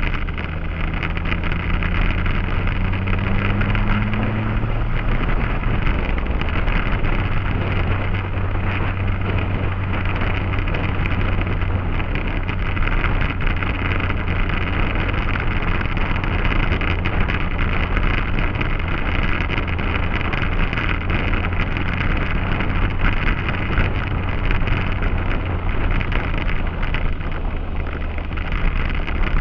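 Motorcycle on the move, heard from the bike under heavy wind noise on the microphone. The engine note rises over the first few seconds as it accelerates, then holds steady.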